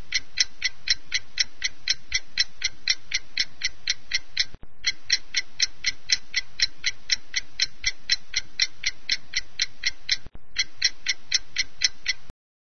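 Clock ticking, about four quick ticks a second over a steady background hiss. It breaks off briefly twice and stops just before the end.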